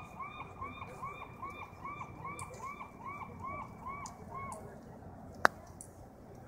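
A bird calling in a quick, evenly spaced series of about a dozen short arched notes, about two to three a second, that stops about four and a half seconds in. A single sharp click or knock follows about a second later.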